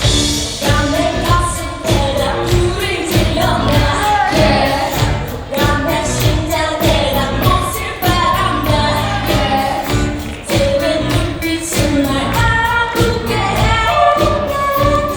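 Live band performing a pop-rock ballad: a sung vocal melody over drums and band accompaniment.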